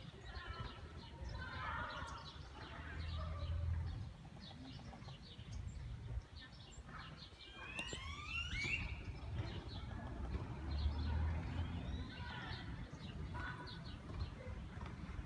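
Birds chirping with short, scattered calls, with a burst of quickly rising notes around the middle. Underneath runs a low rumble that swells twice, about a quarter of the way in and again about two-thirds through.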